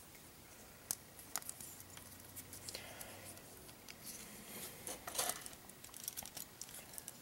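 Faint, scattered clicks and taps of small plastic model-kit parts being handled and pressed together by fingers, as a Gunpla hand cover is fitted on.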